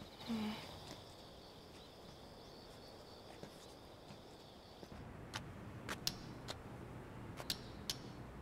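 Insects trill in a steady high tone. About five seconds in, a string of sharp, irregular clicks begins over a faint low hum: the strange sound heard just before being warped through time.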